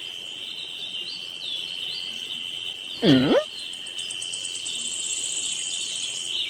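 A steady, high-pitched insect-like trill, with faint chirps over it. About three seconds in there is one brief swooping call that dips and rises in pitch.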